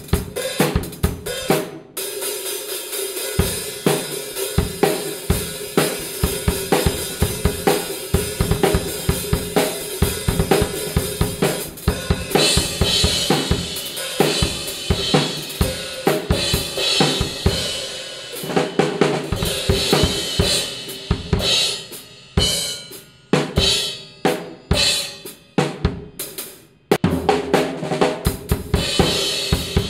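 Acoustic drum kit played in a groove of bass drum, snare and hi-hat, with Meinl Classics Custom Brilliant cymbals crashing, more heavily from about twelve seconds in. The playing cuts off abruptly near the end and starts again.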